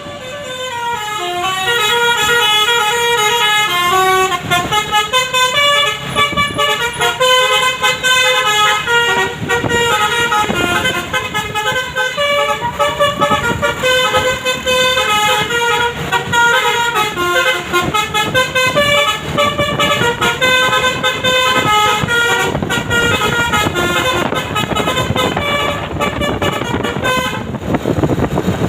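Basuri telolet bus horn playing a fast melody of short stepped notes, stopping about a second before the end.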